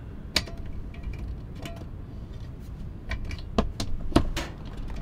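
Truck camper's roof vent hatch being unlatched and pushed open by hand: a series of sharp clicks and knocks, a few at first and a quick cluster in the second half, the loudest a little after four seconds.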